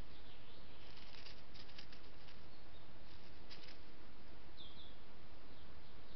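Soft rustling scuffs of a red fox cub moving about on dry leaf litter, a few scattered strokes over the first four seconds, above the steady hiss of a trail camera's microphone. About two-thirds of the way in, a bird gives two quick high chirps.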